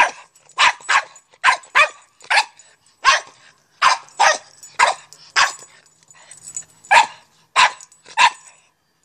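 A dog barking in play, over and over, in short sharp barks: about a dozen, roughly two a second, with a brief pause about six seconds in.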